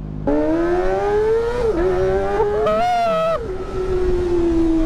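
Kawasaki ZX-25R's inline-four engine through a Villain X1 aftermarket muffler, revving and pulling with its pitch rising steadily. The pitch dips briefly a little under two seconds in, then holds fairly steady.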